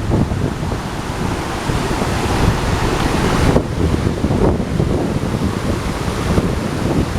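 Waterfall rushing, a steady dense roar of falling water, with wind buffeting the microphone.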